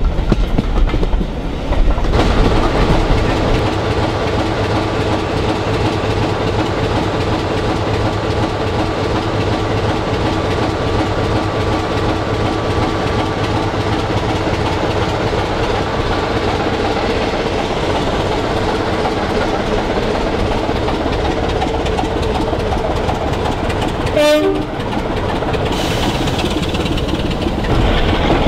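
Sulzer-engined diesel locomotive working, a steady heavy engine drone with held tones, mixed with coach and rail noise. There is a single sharp clank about three-quarters of the way through.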